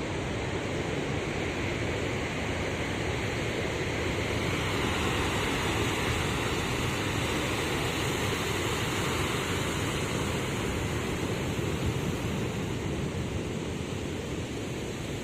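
Rough sea: waves breaking continuously on the shore in a steady rush of surf that swells louder through the middle and eases slightly near the end.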